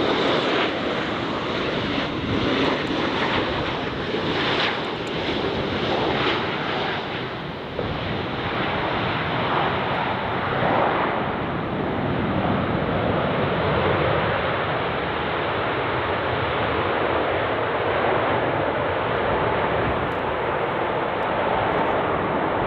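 Boeing 737 MAX 8-200's CFM LEAP-1B jet engines as the airliner passes low on final approach and lands. A high whine falls in pitch in the first seconds, then the engine noise runs on steadily as the jet rolls out down the runway.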